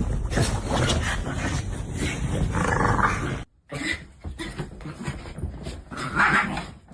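A dog making vocal sounds, in two stretches split by a brief silent break about halfway, with a louder call near the middle and another near the end.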